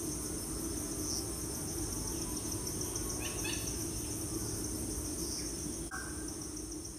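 Steady high chirring of crickets, fading out near the end.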